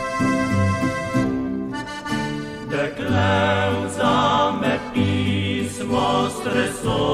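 Background music: accordion playing a slow Slovenian folk song, with singing voices with vibrato coming in about three seconds in.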